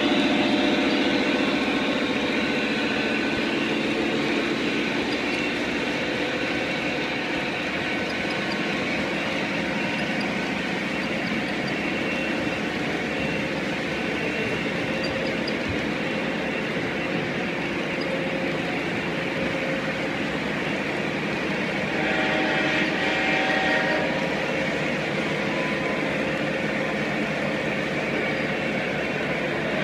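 Model intermodal freight train rolling past on the layout's track, a steady rolling rumble and clatter of the cars' wheels. The locomotives' engine sound fades in the first few seconds, and a louder stretch with steady tones lasts about two seconds roughly three-quarters of the way through.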